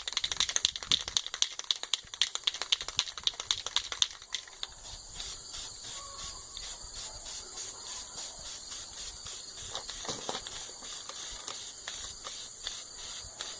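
Aerosol spray paint can being shaken, its mixing ball rattling rapidly, then the paint spraying with a steady hiss that pulses in short strokes.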